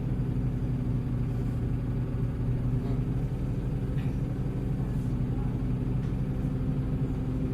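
Heuliez GX317 LPG city bus engine running at a steady, even pitch, heard from inside the bus.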